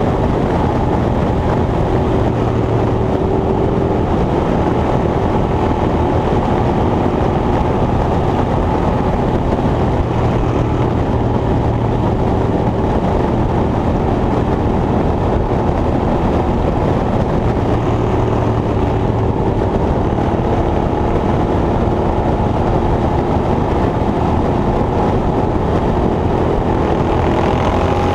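An engine running steadily under a loud, even mechanical rumble, rising in pitch near the end as it speeds up.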